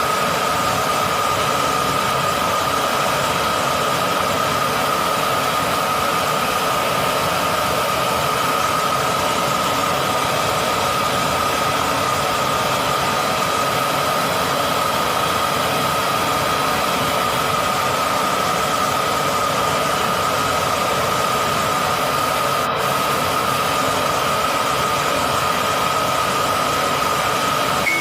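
Gas brazing torch burning: a steady hiss with a constant high whistle-like tone, unchanging throughout.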